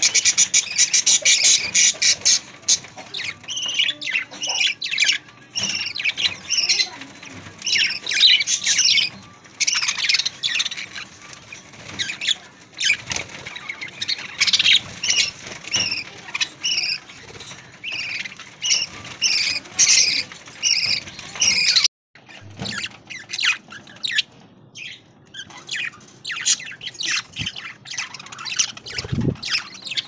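A flock of budgerigars chattering: rapid, overlapping high chirps and squawks, loudest in the first few seconds, broken by a sudden short gap a little over two-thirds of the way through.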